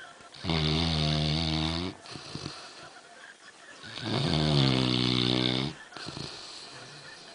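Young black Labrador snoring in a deep sleep: two long snores, each about one and a half seconds, roughly three seconds apart, with quieter breathing between them.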